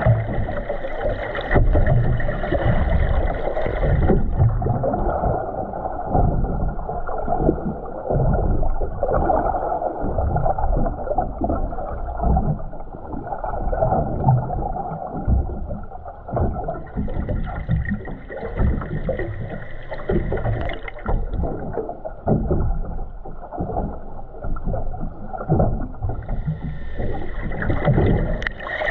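Muffled water sloshing and gurgling against an underwater camera housing held just below the sea surface. A steady higher hum comes in at the start, again around the middle, and near the end.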